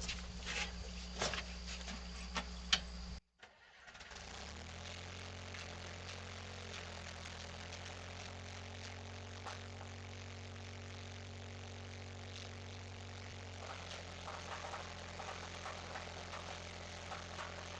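Skid steer engine running with clicks and knocks. About three seconds in the sound cuts out, then an engine hum builds over about a second and settles into a steady idle, with a slight change in pitch near the end.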